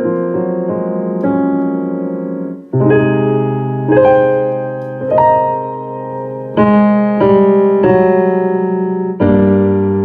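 Piano playing a slow passage of held chords, a new chord struck about every second or so, each ringing on until the next.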